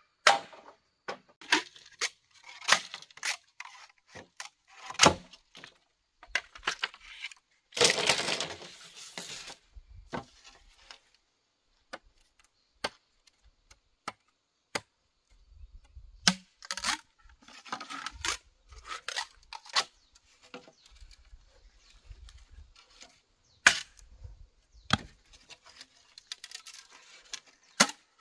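Green bamboo being handled and trimmed with a machete: irregular sharp knocks and cracks of the blade and the poles, with a longer tearing, rustling burst about eight seconds in.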